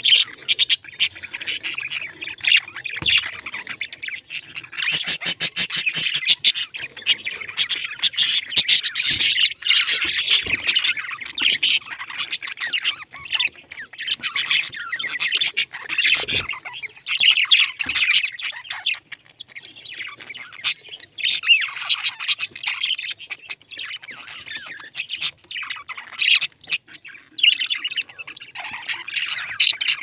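A flock of budgerigars chattering continuously, a dense mix of warbling chirps and squawks, with scattered sharp clicks among them.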